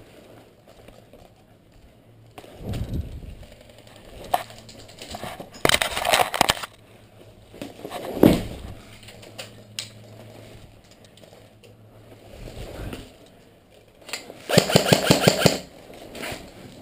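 Stock KWA G36C airsoft electric rifle firing short full-auto bursts of rapid, evenly spaced clicks: one about six seconds in and a longer one near the end. Between them come scattered thumps and knocks.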